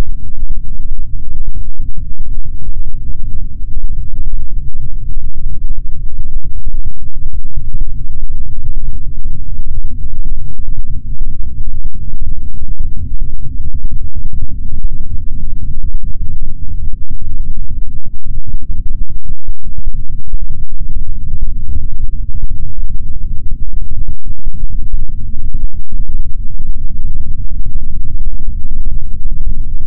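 Loud, heavily distorted bass-heavy electronic drone, a dense low rumble with a few brief dropouts.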